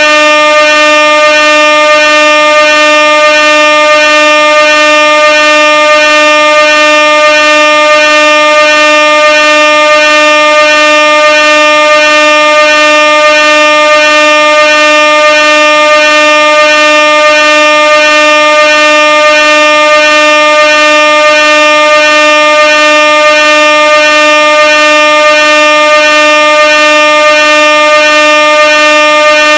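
Air horn blaring loud and unbroken at one steady pitch, rich in overtones.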